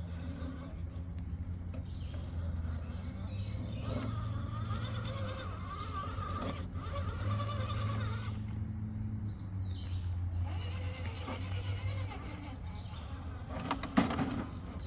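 Electric motor and gear whine of an Axial SCX10 RC rock crawler, rising and falling with the throttle as it climbs a rock ledge. There are a couple of sharp knocks near the end, likely tires or chassis striking rock.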